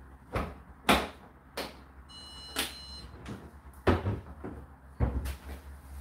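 Indesit IDC8T3 condenser tumble dryer running, with a steady low motor hum under irregular knocks as the load tumbles in the drum. A short high thin tone sounds about two seconds in, and the hum grows stronger near the end.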